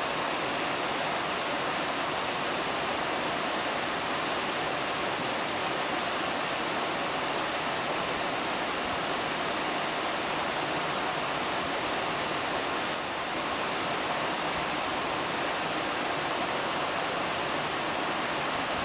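Woodland stream rushing and splashing over rocks and small falls, a steady even rush of water. A single sharp click cuts through about two-thirds of the way in.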